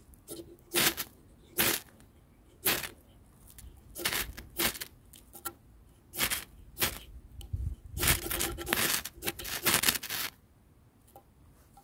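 Ferrocerium rod scraped with a small metal striker, about a dozen short, rasping strokes, spaced out at first and coming faster near the end, showering sparks onto fine wood shavings to light them.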